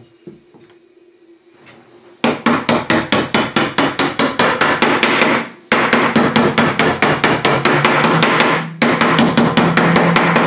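Small hammer tapping the lid back down onto a metal paint can, about six light blows a second, starting about two seconds in and coming in three runs with short pauses between them. The lid is being seated to seal the CO2-flooded can airtight.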